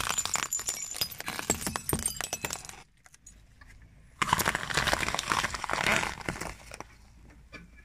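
Tractor tyre rolling over a shattered green glass bottle, a dense crackle of glass crunching and clinking for about three seconds. After a brief pause the tyre rolls over a row of apples, crushing and splitting them with a loud crunching for about three seconds.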